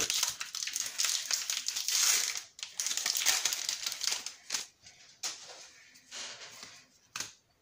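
Foil wrapper of a Magic: The Gathering booster pack crinkling as it is opened by hand: continuous crackly rustling for the first few seconds, then shorter separate crinkles.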